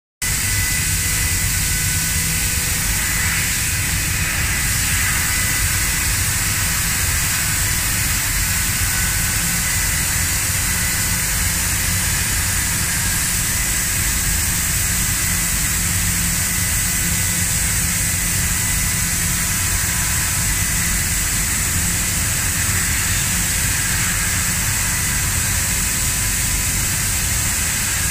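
Amada ENSIS 3015AJ fiber laser cutting sheet steel: a loud, steady hiss with a low rumble beneath and a few faint steady tones, unchanging as the cutting head works.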